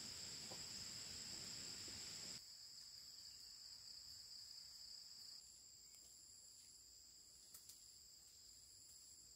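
Faint, steady high-pitched insect chorus of crickets, a continuous trilling with no pauses. The background noise under it drops away suddenly about two seconds in and again about five seconds in, and there are a couple of faint clicks near the end.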